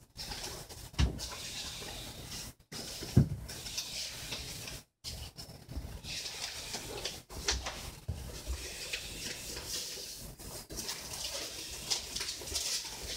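Paper rustling and phone-handling noise as envelopes and stamp sheets are moved about, with two dull bumps about one and three seconds in and the sound cutting out briefly twice.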